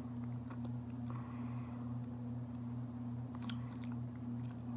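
Close-up chewing of sticky raw honeycomb and wax: wet, sticky mouth sounds with small clicks and one sharper click about three and a half seconds in, over a steady low hum.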